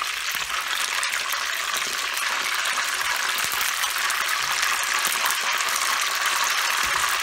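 Hot oil sizzling steadily in a wok as batter-coated chicken pieces fry.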